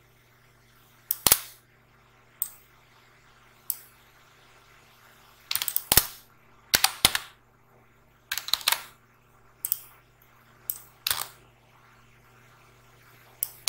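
Sharp clicks of a computer mouse and keyboard, some single and some in quick clusters, about a dozen spaced irregularly, over a faint steady electrical hum.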